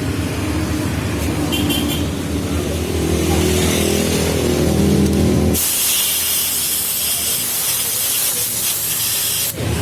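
Yamaha RX-King's two-stroke single-cylinder engine running, its pitch wavering and rising a little over the last couple of seconds before it stops abruptly about five and a half seconds in. A steady hiss follows for about four seconds.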